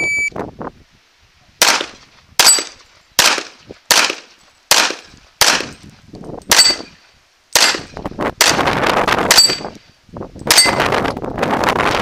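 A short electronic beep from the shot timer, then a string of about ten pistol shots, roughly one every three-quarters of a second. Several shots are followed by the bright ring of a steel plate being hit.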